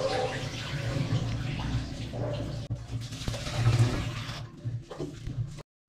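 Pan of water with roselle calyxes boiling hard, bubbling and frothing, with a low steady hum under it. It is stirred with a wooden spatula. The sound cuts out abruptly for a moment near the end.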